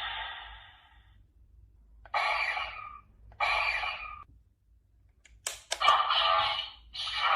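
Kamen Rider Valvarad toy wrench sword playing its electronic sound effects through its small built-in speaker in short separate bursts, with sharp clicks of its trigger or moving parts being worked about two-thirds of the way through.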